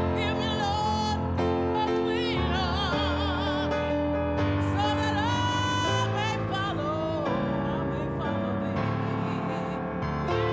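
Church choir singing with keyboard accompaniment: voices held with vibrato over sustained chords.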